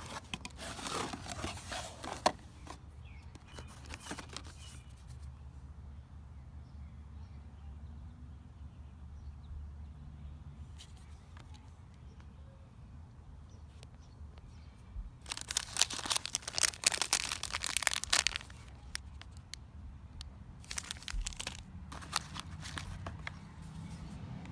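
Packaging being torn open and crinkled by hand in several bursts, the longest about two-thirds of the way through.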